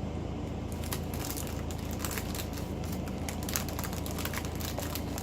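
Small plastic bags of diamond-painting drills crinkling and crackling as they are handled, starting about a second in, over a steady low hum.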